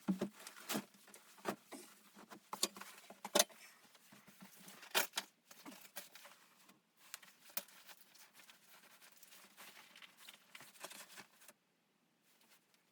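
Irregular light clicks and knocks, a few of them sharper, that stop about eleven and a half seconds in.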